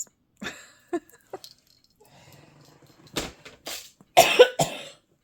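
A woman coughing, a short run of about four coughs in the second half, the loudest near the end.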